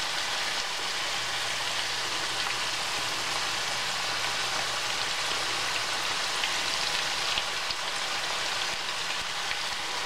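Sweet potato slices shallow-frying in hot oil in a stainless steel pan: a steady sizzle.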